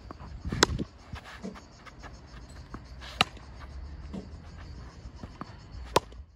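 Tennis ball struck by a spotOn Classic racket in a baseline rally: three sharp strikes about two and a half seconds apart, with fainter knocks between them over a low rumble.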